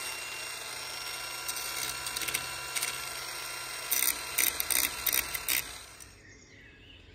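Metal welding: a steady sizzling hiss with irregular sharp crackles from the arc, stopping about six seconds in.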